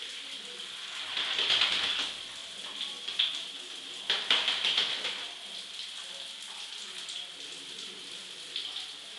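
Shower water spraying onto a tiled floor, steady throughout. Louder splashing comes about a second in and again around four seconds in, as a blue-winged macaw flaps its wings in the water.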